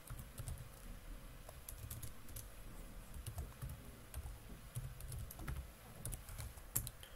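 Typing on a computer keyboard: faint, irregular keystrokes, with one louder keystroke near the end.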